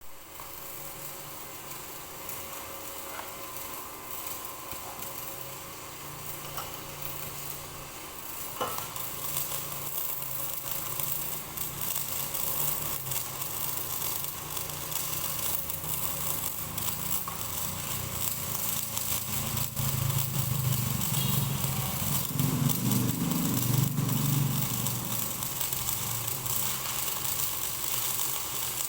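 Stick welding with an LB-52 low-hydrogen electrode: the arc gives a steady crackling sizzle. A low hum grows louder in the second half.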